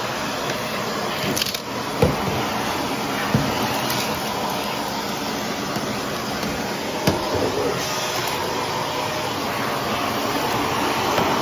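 Shark cordless stick vacuum running over carpet with a steady whooshing hum. Three short knocks come through it, about two, three and a half and seven seconds in.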